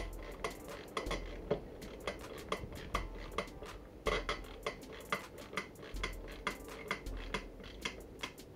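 Hand screwdriver driving a screw into a wooden board: a steady run of sharp metallic clicks, about three a second, as the driver is turned stroke by stroke.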